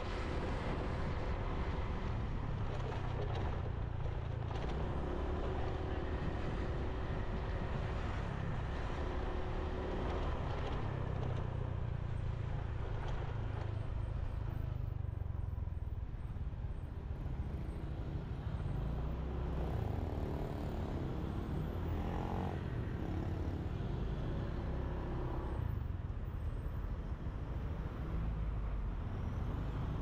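Motorbike engine running during a ride, with steady wind and road rumble and the engine note shifting now and then.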